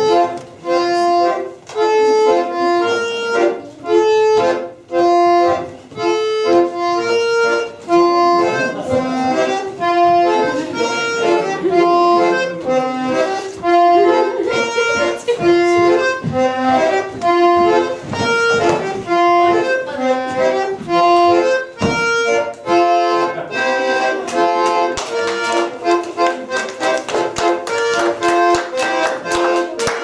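Accordion playing a lively folk dance tune in a steady rhythm. In the last few seconds people clap along in time.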